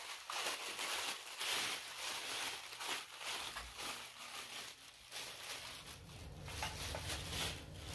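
Paper or plastic wrapping rustling and crinkling in irregular bursts as a small package is unwrapped by hand.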